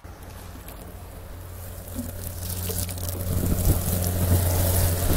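Garden hose spray gun showering water onto stony soil, a hiss of spray that builds up over the second half. A steady low hum runs underneath.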